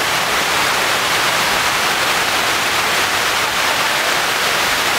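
A large man-made waterfall fountain, water sheeting down a tall curved wall, gives a loud, steady rush of falling water.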